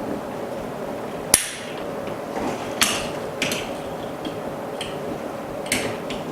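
A sharp hard click a little over a second in, followed by four or five lighter clicks and taps of small hard objects, over a steady machine hum.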